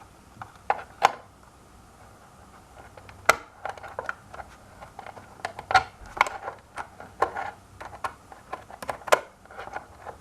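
A wrench clicking and knocking against a nut on a hoverboard's plastic shell as the nut is tightened: irregular sharp clicks, a few at first, then coming thick and fast from about three seconds in.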